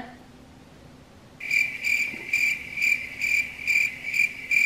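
Crickets chirping in an even rhythm, about two short chirps a second, starting abruptly about a second and a half in.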